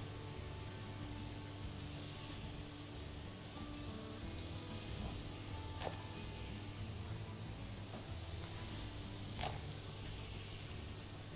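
Faint steady sizzling, as of food frying in a pan, under quiet background music, with a few light knocks about halfway through and near the end.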